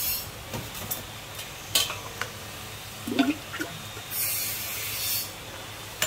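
Scattered clinks, taps and scrapes of utensils and bowls being handled while food is prepared, with a short hiss about four seconds in.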